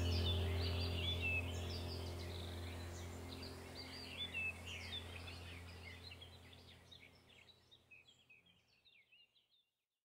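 Small birds chirping and trilling over a low steady hum, the whole ambience fading out gradually until it stops about nine and a half seconds in.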